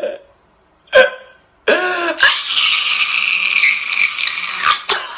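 A man crying loudly: a sharp catching sob about a second in, then a long high wail lasting about three seconds.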